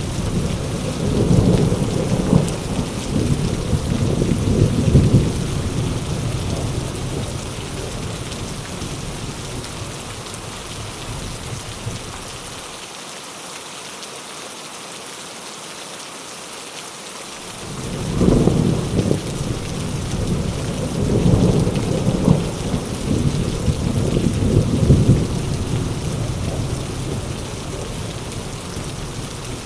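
Heavy rain falling steadily, with rolling thunder. A long rumble dies away, then about eighteen seconds in a new peal breaks in and rolls on in waves before fading near the end.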